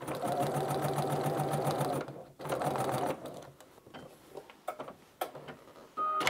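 Computerized sewing machine running at a steady stitch for about two seconds, then a second short run after a brief stop: stitching up to a marked dot and backstitching to lock the seam. After that come a few light clicks as buttons on the machine are pressed, and a short beep near the end.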